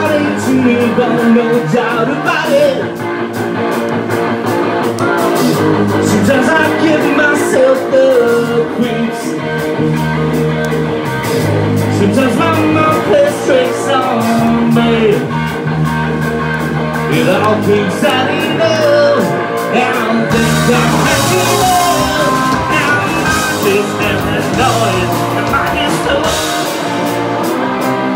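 Live rock band playing: a man singing into a microphone over electric guitar, bass guitar and drums, with a cymbal wash about two-thirds of the way through.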